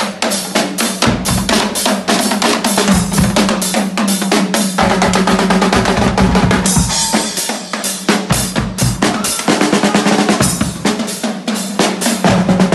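A marching drum band playing a fast, dense groove of drums and crashing cymbals. The deep bass drum drops in and out in stretches of a few seconds.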